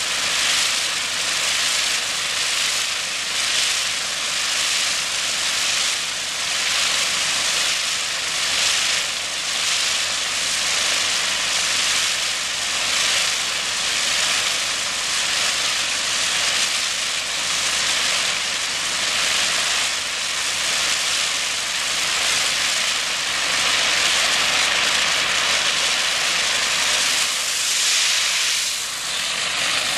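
High-pressure water jet from a hydro-blasting wand striking pavement, a loud steady spraying hiss that swells and eases slightly as the wand moves, dipping briefly near the end. The jet is blasting epoxy striping paint off the surface.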